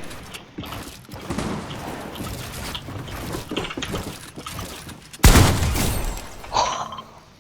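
Rough, crackling noise, with a sudden loud crash about five seconds in that fades over about a second.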